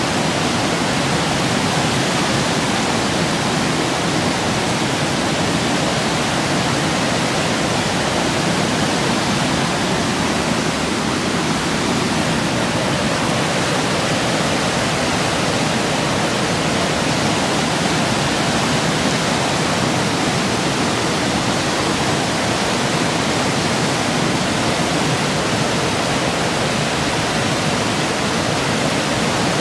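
River in flood rushing through rapids among trees standing in the water: a loud, steady rush of churning white water.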